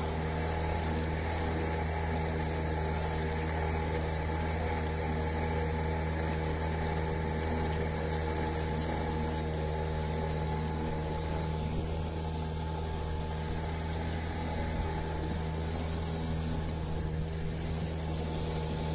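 Small boat motor running steadily at a constant low speed, a continuous even hum.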